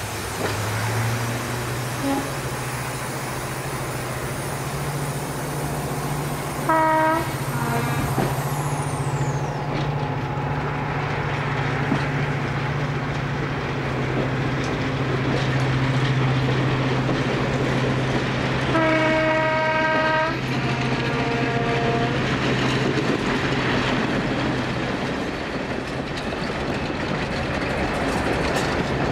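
Class 55 Deltic diesel locomotive 55022, heard from a coach behind it: its two Napier Deltic two-stroke engines keep up a steady low drone. Its horn sounds twice, a short blast about seven seconds in and a longer blast around nineteen seconds that drops to a lower second note.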